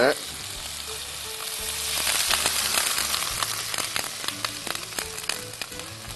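Water poured into a hot frying pan of chicken browned in its own rendered fat: loud sizzling that swells about two seconds in, then settles into many crackles and spits.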